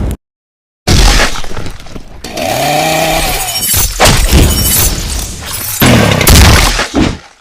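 Edited battle sound effects: after a brief cut to dead silence, a run of loud crashing, shattering impacts, with a short pitched whine that rises and falls near the middle.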